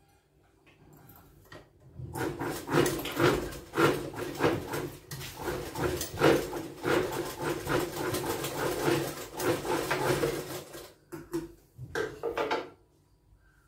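Domestic sewing machine stitching through blouse fabric. It runs in a steady rhythmic clatter from about two seconds in to about eleven seconds, then gives a few short bursts near the end.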